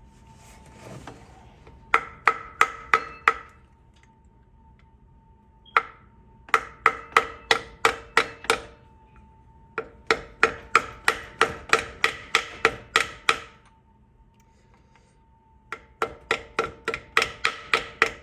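Light, quick mallet taps on a socket used as a driver, seating a seal flush in its bore. Each strike rings metallically, in four runs of about four taps a second with short pauses between.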